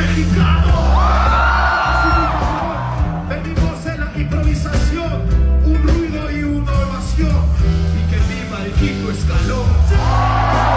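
Live hip-hop beat with heavy bass over a concert sound system, a rapper freestyling into the microphone over it, and shouts from the crowd swelling about a second in and again near the end.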